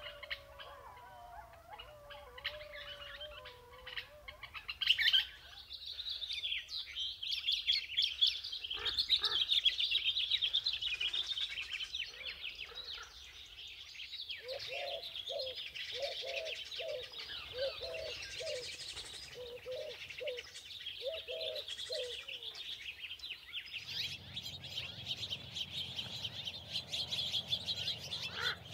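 Wild birds of open grassland chirping and calling, in several separate field recordings cut together. Busy high twittering and chirping fills most of it, with a run of short, low, evenly repeated calls in the middle.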